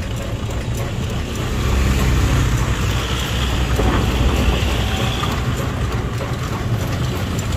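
Horse-drawn kalesa rolling along a paved road: a steady rumbling noise of the moving carriage, deepest in the low end.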